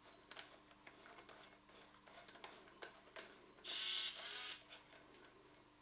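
Faint clicks and taps of a plastic sensor housing being pushed and seated into the hole in a ceramic cistern lid, with one louder scrape lasting just under a second near the middle.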